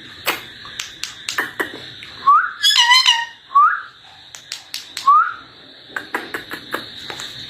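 A pet rose-ringed parakeet whistling: three short rising whistles a second or so apart, with a brief call between the first two. Scattered small clicks are heard over a faint steady high tone.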